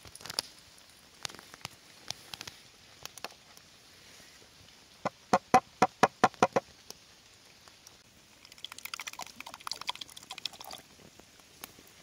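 A steel cleaver rapped quickly against a hollow wooden bowl, about eight sharp knocks in a row, tapping chopped food off the blade into the bowl. A softer, crackly patter follows.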